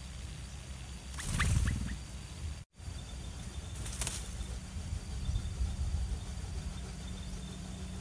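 A brief flutter of yellow-vented bulbul wings about a second in, with a few short high chirps, over a steady low hum; the sound drops out for an instant just before three seconds.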